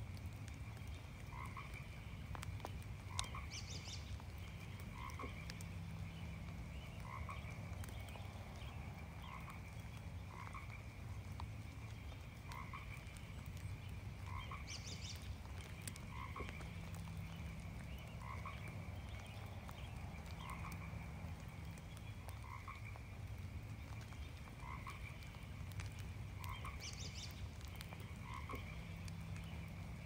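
A chorus of frogs calling: one repeats a short croak about every two seconds over a steady row of higher calls from others, with a brief higher call three times about eleven seconds apart. Light rain falls, heard as scattered faint ticks of drops.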